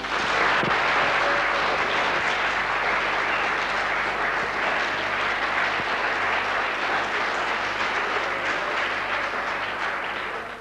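A large audience applauding in a steady, dense clatter of clapping, which cuts off suddenly near the end.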